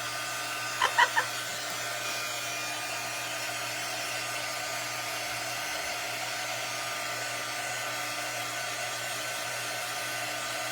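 Steady electric whirring hum of a small motor-driven blower or fan, even and unchanging, with three brief high-pitched blips about a second in.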